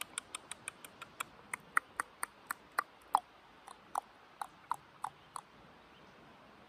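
An animal's short, sharp chip calls repeated about four times a second, slowing and stopping about five seconds in.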